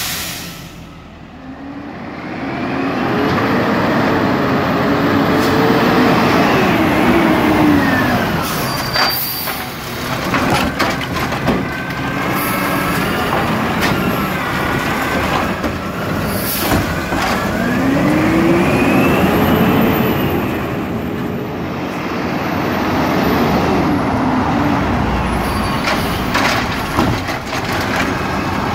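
Garbage truck engine running, speeding up and slowing down again in two long swells. Short knocks and hisses come between the swells.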